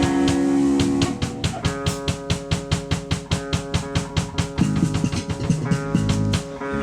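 A band playing: a drum kit keeps a fast, even beat of about four hits a second under sustained guitar chords.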